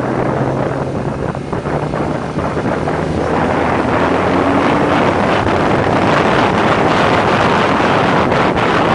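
Motorcycle riding at speed: wind buffeting the microphone over a faint engine note. The wind rush grows louder about three seconds in as the pace picks up.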